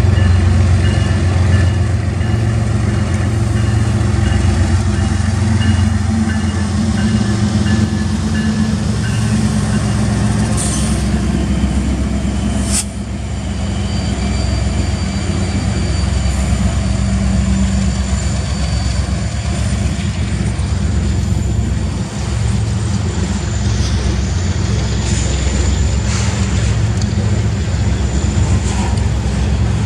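Union Pacific GE ES44AC and EMD SD70M diesel-electric locomotives running past close by, followed by a freight train of tank cars and covered hoppers. Steel wheels rumble on the rail throughout, with a sharp click about halfway and faint high wheel squeal in the later part.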